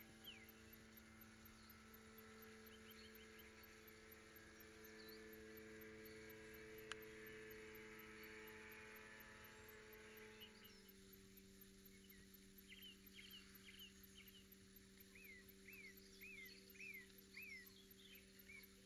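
Near silence with a faint steady electrical hum. Faint short bird chirps come through, with a run of about five in quick succession near the end.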